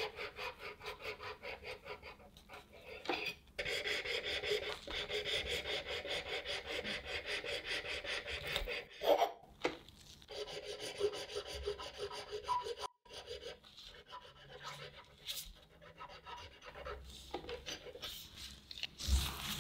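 Serrated wire of a cake leveler sawing back and forth through a sponge cake, slicing it into thin layers: quick, even rasping strokes with a few brief pauses.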